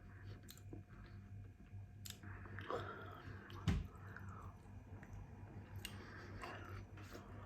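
Close-miked chewing and mouth sounds with scattered small clicks, and one louder thump about three and a half seconds in.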